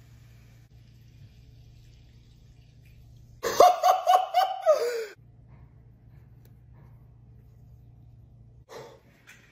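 High-pitched excited laughter, a run of about six quick pulses that fall in pitch at the end and last about a second and a half, over a faint low hum.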